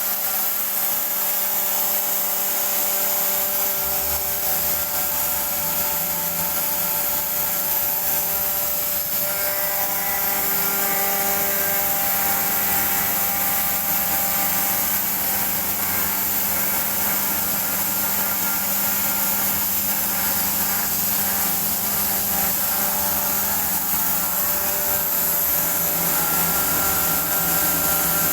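Industrial air compressors running steadily, a screw compressor and a booster compressor together: a continuous machine hum with several steady tones over a strong high hiss.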